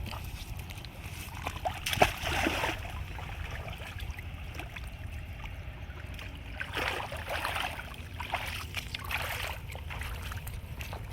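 Water splashing and sloshing in several short bursts over a steady low rumble, with a sharp knock about two seconds in.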